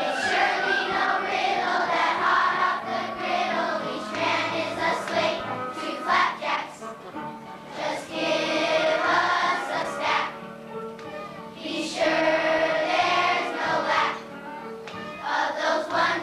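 Children's choir singing a song in phrases, with musical accompaniment beneath.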